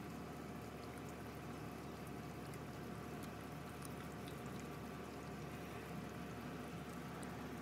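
A pit bull puppy gnawing and licking raw chicken: faint, wet chewing and smacking with a few scattered ticks, over a steady hiss.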